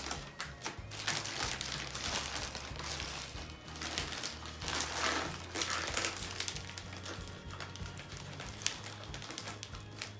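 Background music with a steady bass line, over paper and cardboard packaging being handled and torn open: crinkling and rustling with scattered taps and clicks.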